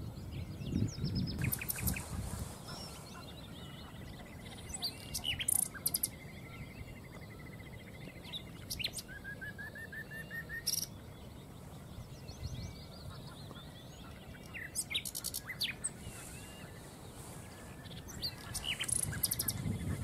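Common nightingale singing in separate phrases a few seconds apart: fast trills, clear whistled notes and a run of short repeated notes that rise in pitch, with pauses between phrases. A low rumble sits under the song near the start and again near the end.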